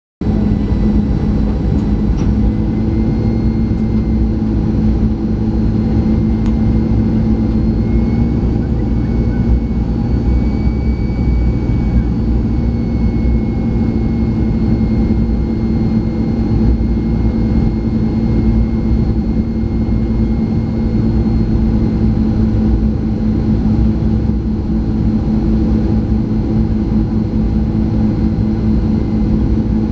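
Steady cabin noise of a Boeing 737-500 on approach, heard from a window seat over the wing: the CFM56-3 turbofans and the airflow make a constant low drone with a held hum and a faint high whine.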